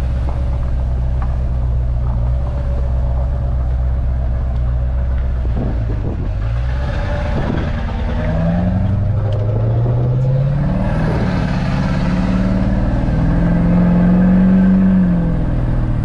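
LB7 Duramax 6.6-litre turbodiesel V8 heard from inside the pickup's cab, pulling away on a test drive after an injector repair. It runs steadily at first, then the revs climb in several steps from about halfway through as the truck accelerates.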